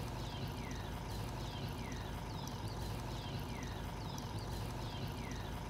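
A bird repeating a short, descending whistled call about once a second, over a steady low rumble of outdoor background.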